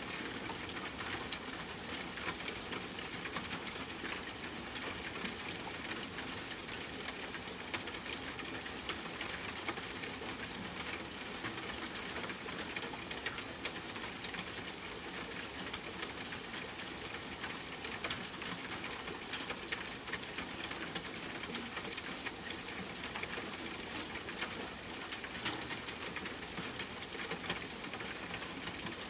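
Steady rain falling, an even hiss with many small drops ticking on a surface.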